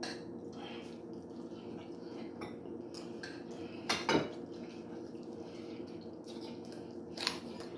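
A utensil clinking and scraping against a plate as plain white rice is scooped up, with a few sharp clinks, the loudest about four seconds in. A steady low hum runs underneath.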